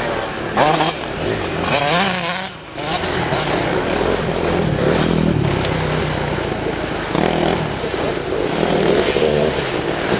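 Enduro dirt bike engines revving hard and easing off as riders pass close by one after another, the throttle rising and falling in the first few seconds, then running more steadily.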